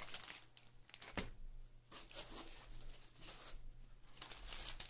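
Clear plastic accessory bags crinkling in the hands in short irregular bursts, with a single knock about a second in.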